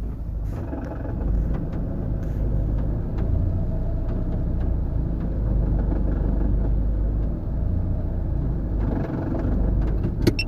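2007 Honda Fit with its transmission in reverse, the engine running and the gearbox giving a steady low rumble, the transmission noise the owner is checking. A short click sounds near the end.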